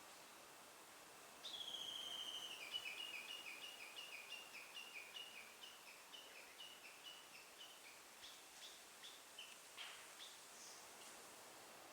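Japanese bush warbler (uguisu) giving its valley-crossing call: one long high whistle, then a rapid run of repeated 'ke-kyo' notes, about two to three a second, fading away. A faint tap near the end.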